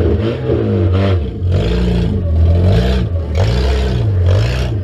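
Demolition derby car engine revved over and over, its pitch swinging up and down about once a second, with bursts of clattering noise mixed in.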